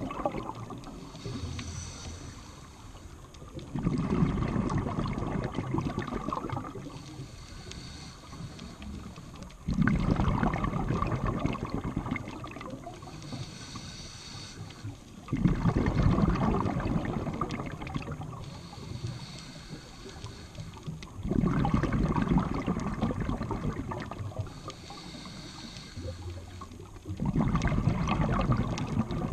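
A scuba diver breathing through a regulator underwater. A bubbling rush of exhaled air comes five times, about every six seconds, and a fainter, higher hiss of inhaling comes between them.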